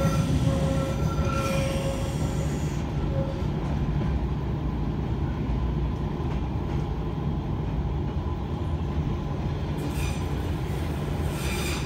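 Metre-gauge NStCM electric train running, heard from inside the carriage: the wheels squeal on a curve for the first few seconds, then the running gear gives a steady low rumble.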